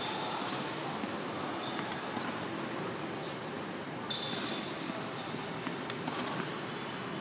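Tennis racket striking balls on volleys: a few sharp pings of strings on ball, the loudest about four seconds in, with fainter hits after, over a steady hall hum.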